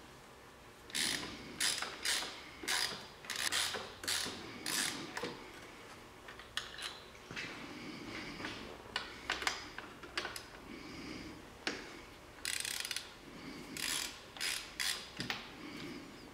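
Socket ratchet wrench clicking in repeated short bursts, about two a second at first and then in sparser runs, as the 13 mm nut and bolt on the front of a power steering pump are loosened.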